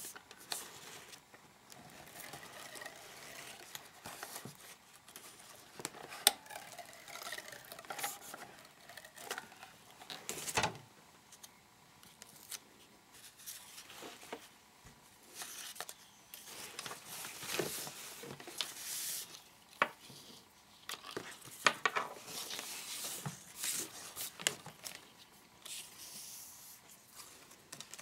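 Paper and card rustling and being pressed down, with scattered light taps and clicks of craft tools, as decorative paper border strips are stuck onto a mini-book page.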